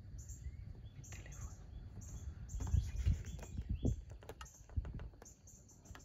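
Rapid high-pitched chirping in short runs over a steady low rumble on the microphone, with a few soft knocks and clicks around the middle.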